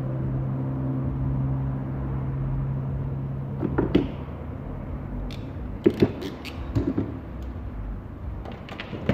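A steady low hum that stops about three and a half seconds in, then scattered sharp clicks and clatters of hand tools and small metal parts handled on a workbench, with a cluster of the loudest clicks a little past halfway.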